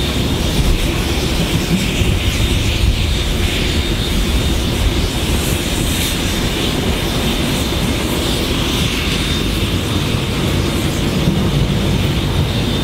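Two trains running side by side: diesel locomotives under power on the adjacent track, together with steel wheels running on the rails. The sound is a steady, heavy roar.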